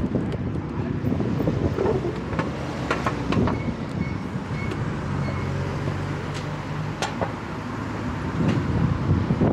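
Street traffic noise heard from an electric scooter riding through an intersection, a dense low rumble with scattered sharp clicks and knocks. A few short, faint high beeps come about four seconds in.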